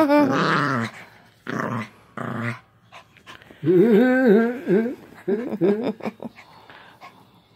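Puppy growling and whining in play, in four or five short bouts with pauses between, as it play-bites a person's fingers.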